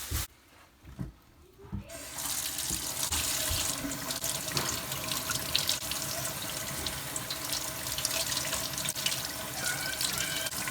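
Kitchen tap running into a sink with water splashing, as raw chicken breasts are rinsed under it; the water comes on about two seconds in after a few soft knocks.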